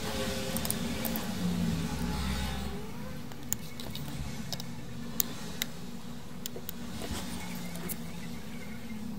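A steady low background hum, with rustling and a few sharp light clicks as a circuit board and a jumper wire are handled.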